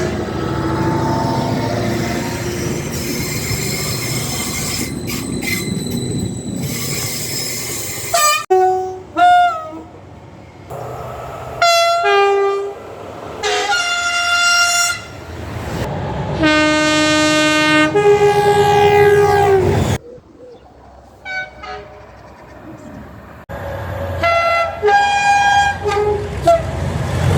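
A series of British train horns from different trains, one clip after another with abrupt cuts: first several seconds of a train passing with rumbling wheel noise, then short and long horn blasts that step between two notes, including one long blast in the middle going from a lower note to a higher one.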